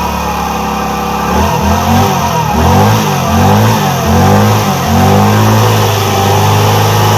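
Motor scooter engine running, held steady for about a second, then revved in a run of quick blips rising and falling in pitch, then held steady again at higher revs near the end.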